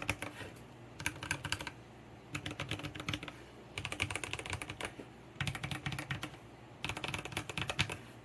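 Typing on an Eyooso Z11 60% mechanical keyboard with lubed Gateron Brown switches in a metal plate and carbon keycaps: about six quick bursts of keystrokes with short pauses between them. The plastic case gives the keystrokes some hollowness, and the stabilizers are unlubed.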